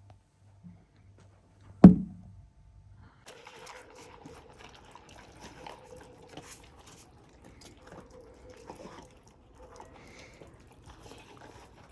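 A single loud thump about two seconds in, then a dog eating snow: a long run of small wet, crunching clicks of licking and chewing.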